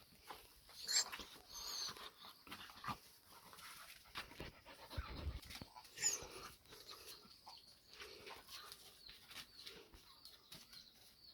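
Puppy giving a few short, high whimpers or yelps, about a second in and again around six seconds in, among scuffling and rustling from rough play.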